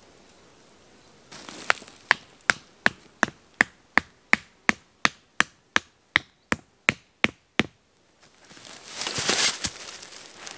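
Wooden tarp peg being hammered into the ground: about seventeen sharp, evenly paced knocks, nearly three a second, that stop suddenly. A burst of rustling follows near the end.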